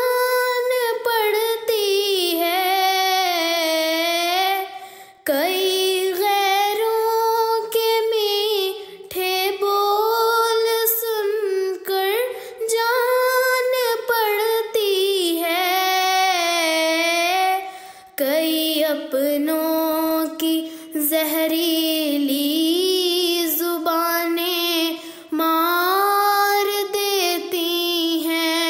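One female voice singing an Urdu nazm, in long melodic phrases with short breaks between them.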